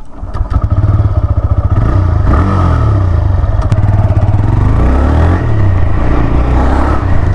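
TVS Raider 125's single-cylinder 125 cc engine pulling away from a stop in power mode and accelerating, the revs climbing and dropping back twice as it shifts up through the gears.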